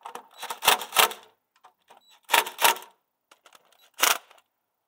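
Cordless impact driver rattling in three short bursts as it runs down the rear main seal retainer bolts.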